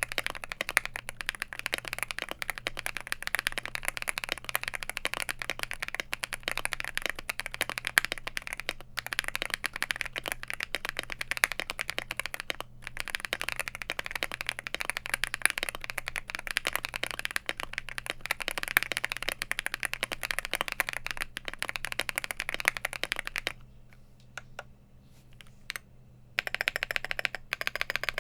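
Fast, continuous typing on an Infiverse INFI75 mechanical keyboard: gasket-mounted, with a polycarbonate plate, factory-lubed Akko Cream Blue Pro tactile switches and SA profile keycaps, giving a dense stream of keystroke clacks. Near the end the typing stops for about three seconds, with only a couple of stray keypresses, then picks up again.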